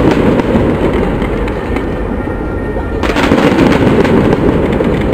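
Fireworks going off continuously: a dense crackling rumble of many small bangs that swells again about three seconds in.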